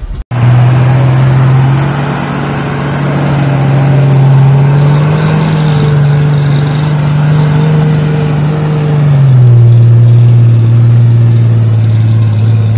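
Ford pickup's engine running hard under load as the truck crawls up a muddy trail. It holds a steady pitch, rises a little midway and drops lower about nine seconds in.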